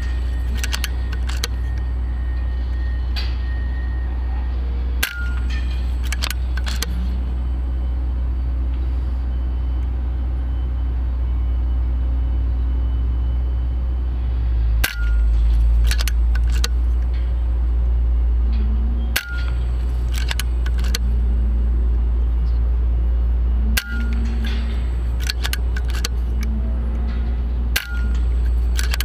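Five sharp air rifle shots, the first about five seconds in and the rest in the second half, each followed by a few quick clicks, over a steady low rumble.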